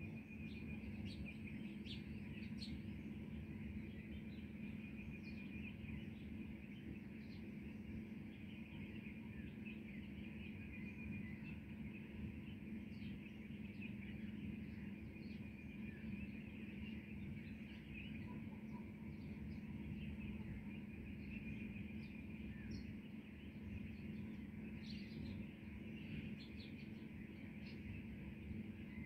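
Birds chirping in a morning chorus: many short, scattered calls over a steady low background hum.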